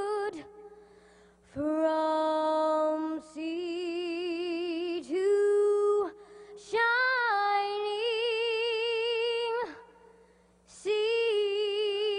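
A young girl's solo voice singing a cappella: slow, held notes with a wide vibrato, separated by short breaths, with a longer pause of about a second before the next note starts near the end.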